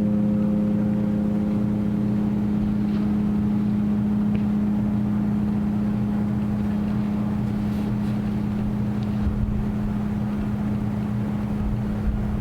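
A bell from the bell tower rings out and slowly fades. Its higher overtones die away in the first couple of seconds while a single low hum lingers. A low rumble of wind noise on the microphone runs underneath.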